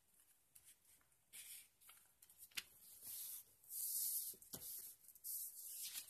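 Sheet of paper rustling and sliding on a desk as it is handled for folding, in short bursts starting about a second in, with two sharp ticks among them.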